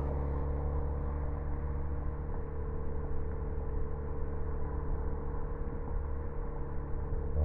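Ford Focus ST engine and exhaust running at a constant speed: an even, unchanging drone with no rise or fall in pitch.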